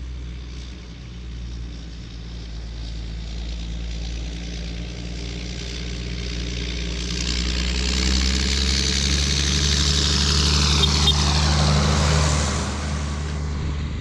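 Ford TW-25 tractor's turbocharged six-cylinder diesel engine pulling steadily as the tractor approaches and drives past. It grows louder towards a peak about two thirds of the way in, then its pitch drops as it goes by.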